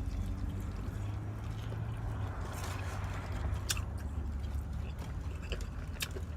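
A person chewing food with the mouth, with a few sharp clicks in the second half, over a steady low rumble inside a vehicle.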